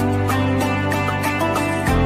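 Background music: sustained chords over a steady light beat, with the bass note changing near the end.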